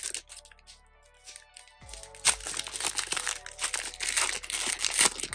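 Foil wrapper of a football trading-card pack crinkling as it is torn open and handled. The crinkling is quiet at first and turns loud and dense about two seconds in, over soft background music.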